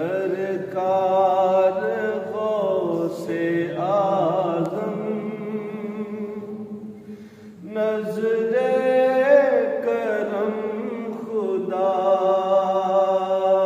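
A man's voice chanting a devotional recitation in long held, sliding notes. It fades out about halfway through and starts again about a second later.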